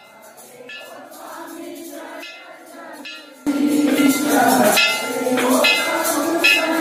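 Hindu temple aarti: devotees singing together while bells and cymbals are struck in a steady rhythm. It is fainter at first and becomes much louder about three and a half seconds in.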